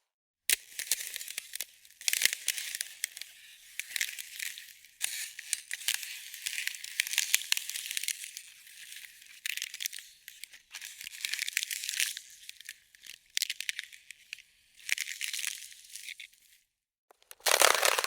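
Ice crackling and crunching: dense high-pitched crackles and sharp snaps in uneven bursts, broken by two short silences, one just after the start and one near the end.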